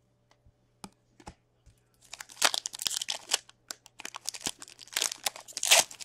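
A wrapper on a pack of hockey trading cards being torn open and crinkled by hand, starting about two seconds in after a few faint ticks.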